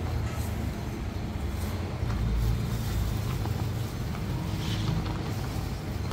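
Steady low rumble of a road vehicle on the move, with a few faint ticks.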